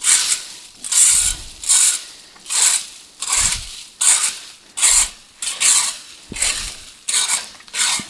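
Leaf rake scratching through dry fallen leaves and the frozen top layer of soil, in quick regular strokes a little more than one a second, each a short dry rasp.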